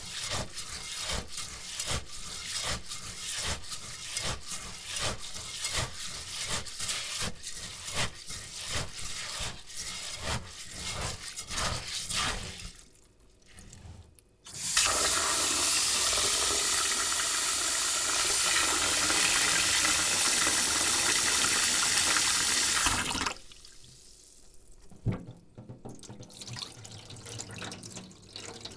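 Rice being washed by hand in a bowl: quick rhythmic scrubbing and swishing of wet grains, about three strokes a second, for about twelve seconds. After a short pause a tap runs steadily into the bowl for about nine seconds and cuts off, followed by softer stirring sounds.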